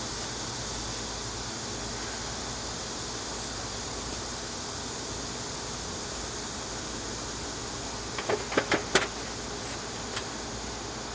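Steady background hiss, with a short cluster of light knocks and clicks about eight seconds in and one more a second or so later.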